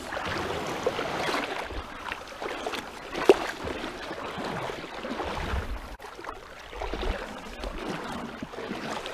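Shallow water sloshing and splashing as people wade and drag a bait net through it, with one sharper splash about three seconds in.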